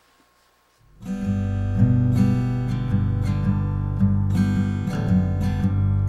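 Background music: an acoustic guitar strumming chords, starting about a second in after a brief near silence.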